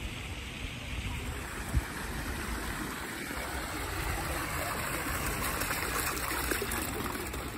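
Floor-fountain water jets splashing onto the wet stone paving, a steady rush of water, with a single short thump about two seconds in.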